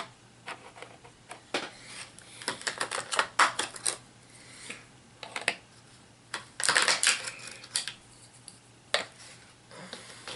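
Small hard plastic miniature figures and their booster packaging being handled on a tabletop: irregular clicks and clattering, with two busier flurries about three seconds in and about seven seconds in.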